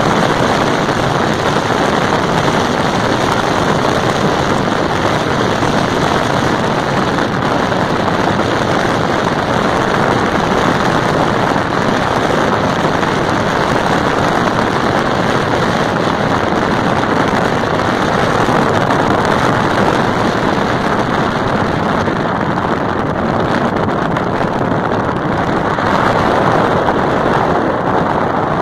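Steady rush of wind and road noise from a car driving along at speed, heard from inside the moving car.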